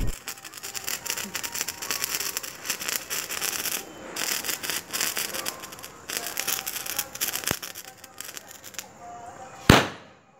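Handheld sparklers burning with a dense fizzing crackle that dies away about nine seconds in. A single sharp bang comes near the end.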